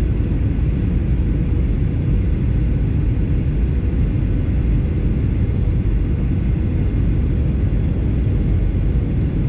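Cabin noise inside a Boeing 737 airliner descending to land: the jet engines and airflow make a steady low rumble, with a steady hum running through it.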